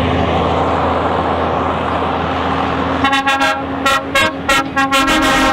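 A truck sound effect: a steady engine rumble, then from about three seconds in a rapid series of short horn toots over the engine.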